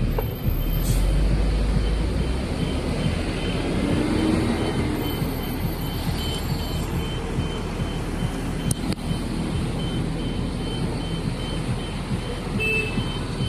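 Road traffic at a bus stop: a heavy vehicle's engine rumbles past in the first couple of seconds, then steady traffic noise. A short high electronic beep repeats quickly and evenly throughout.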